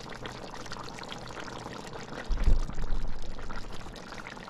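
Pot of curry simmering with a steady fine bubbling. About two seconds in there is a louder low rumbling bump lasting about a second.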